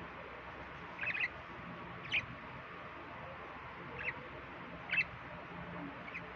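Budgerigar chirping: five short, high chirps spaced a second or so apart, over a steady background hiss.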